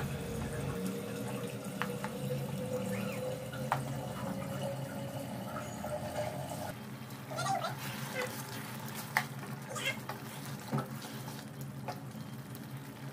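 Chicken kasha gravy simmering in a karahi: a steady bubbling, watery hiss with a few faint clicks and pops.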